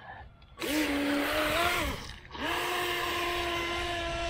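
WLToys WL912-A RC speed boat's 390 brushed electric motor whining as the boat is driven hard across the water, with a hiss of prop wash. It starts about half a second in, cuts off briefly near the two-second mark, then comes back slightly higher and runs steadily.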